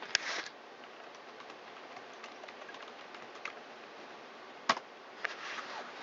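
A few sharp clicks and light taps from handling a laptop, the loudest about two-thirds of the way through, over a faint steady hiss.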